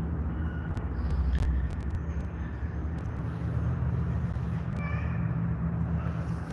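Kittens giving a few short, high meows, the clearest about five seconds in, over a steady low rumble.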